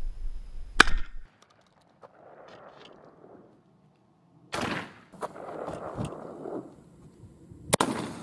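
Derya MK12 semi-automatic 12-gauge shotgun fired three times, a few seconds apart: about a second in, about halfway through, and near the end. Each shot is a sharp report with a short tail. Wind rumbles on the microphone during the first second.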